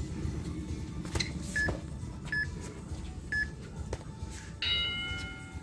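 Boxing round timer giving three short beeps, then a long, harsher beep of about a second near the end, the signal that the sparring round is over. A few sharp thuds of gloved punches land in between.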